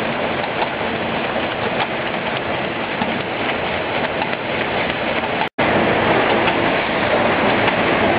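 Automatic high-speed cartoning machine running: a steady, dense mechanical rattle of fast, faint ticks. It cuts out for an instant about five and a half seconds in.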